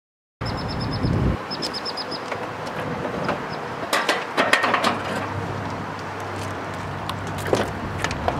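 Outdoor ambience with a few sharp clicks and knocks as a man handles a raised truck hood and the cab door handle. Quick runs of small high chirps in the first two seconds.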